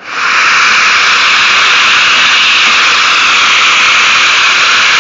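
A Festool Domino 700 joiner and its connected small Festool dust extractor switching on together: a loud, steady rushing noise that starts abruptly and holds level. The extractor, its container not emptied, is struggling with the pull, which the owner blames for it later cutting out.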